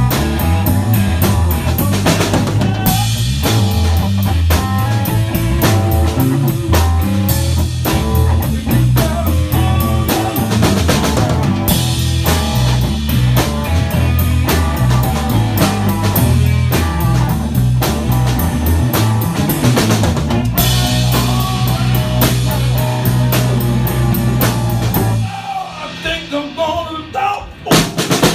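Live rock-blues band playing, with drum kit, bass and electric guitar. About 25 seconds in, the bass and drums stop for a short break in which only a few higher guitar notes carry on, and the full band comes back in just before the end.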